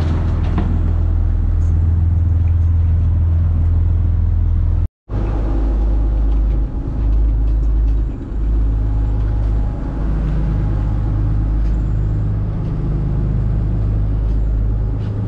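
Boat engine running with a steady low rumble, dropping out briefly about five seconds in.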